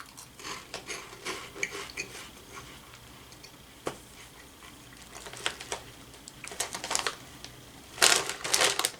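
Scattered crackles and clicks of cheese puffs and their crinkly snack bag being handled and eaten, with one sharp click about four seconds in and a denser run of crackles near the end.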